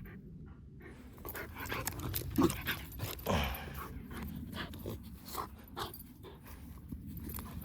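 Kai Ken dog panting, with two brief vocal sounds about two and a half and three and a half seconds in, the second falling in pitch, among scattered light clicks and rustles.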